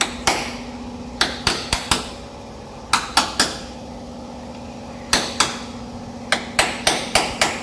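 Hammer striking sheet-metal body panel in quick groups of two to five ringing blows, hand-forming a patch piece for the windscreen frame of a Tata Sumo. A steady low hum runs underneath.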